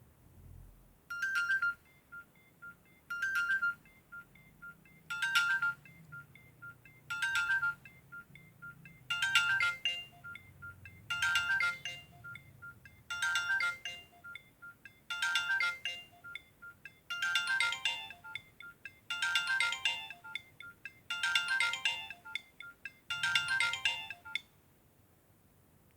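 Nokia 6233 mobile phone ringtone playing through the phone's speaker. A short, bright melodic phrase repeats twelve times, about once every two seconds. From about nine seconds in it grows fuller with lower notes added, and it stops shortly before the end.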